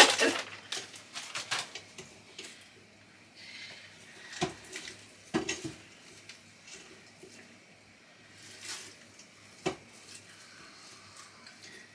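Chicken bones and frozen vegetable scraps being pushed and knocked around inside an Instant Pot's metal inner pot: scattered clatters and rustling, with three louder knocks about four and a half, five and a half and nearly ten seconds in.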